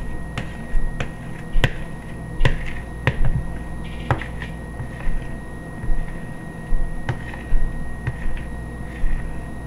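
A utensil tapping and scraping against a plastic mixing bowl as thick scone batter is scooped out: irregular sharp taps, about one or two a second, with short scrapes between.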